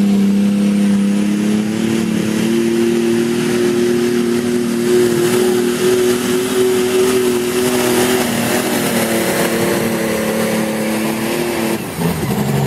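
Turbocharged engine of a limited light super pulling tractor held at full throttle as it drags the weight sled, a steady loud note that climbs slightly about two seconds in. The note breaks off near the end as the pull finishes and the driver comes off the throttle.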